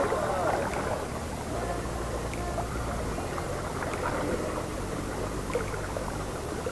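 Water moving at an estuary shoreline under a low steady hum.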